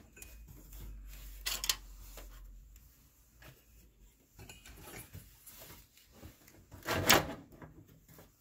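Handling knocks and scrapes of a liquid-cooler radiator being fitted into a PC case: a sharp knock about a second and a half in and a louder clatter about seven seconds in.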